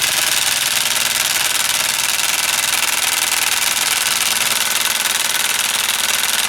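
Ridgid Subcompact 3/8" cordless impact wrench on its lowest speed setting, hammering steadily and rapidly on a lug nut tightened to 80 foot-pounds. It keeps hammering without a change in pace, a sign that it has not broken the nut loose.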